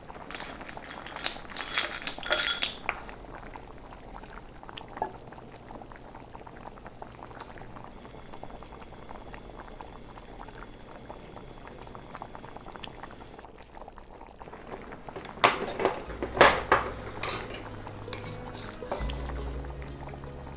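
A pot bubbling steadily on the stove, with a metal utensil clinking and scraping against the pot in two short spells, about two seconds in and again around sixteen seconds in.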